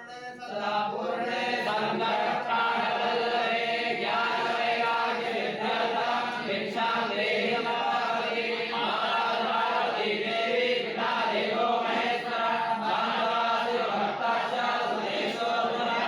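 A group of voices chanting a Hindu mantra together in unison, in a steady recitation.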